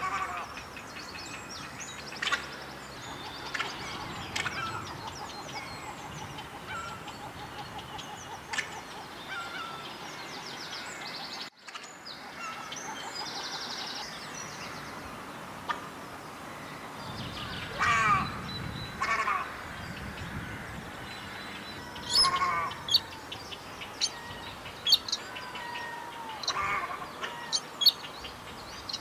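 White-browed crake calling in short, harsh chattering bursts. The calls are sparse at first and come louder and more often in the second half. The sound drops out briefly about halfway through.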